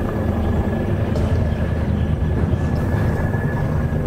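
Helicopter flying past: a fast, steady rotor chop with a thin constant turbine whine above it.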